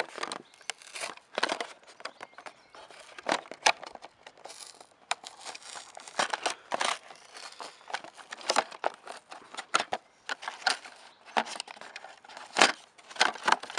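Toy-train box being opened by hand: irregular crinkling, rustling and tearing of the packaging, broken by many short sharp clicks and scrapes.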